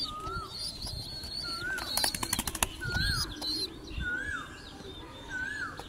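Young pigeon squabs squeaking: a short rising-and-falling squeak repeats about every second and a half, with thinner, higher chirps over it. About two seconds in comes a quick flurry of wing flaps.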